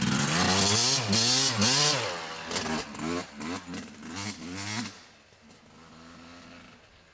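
1998 Yamaha YZ250 two-stroke motocross bike revving hard, its pitch rising and falling repeatedly with a series of quick throttle blips. About five seconds in the engine sound drops away to a faint, steady drone.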